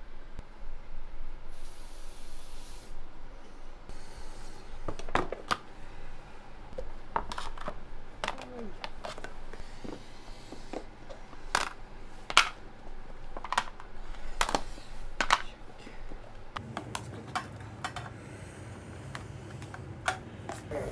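Kitchen clatter: scattered sharp clicks and knocks of dishes and utensils being handled, with a brief high hiss about two seconds in and a steady low hum underneath.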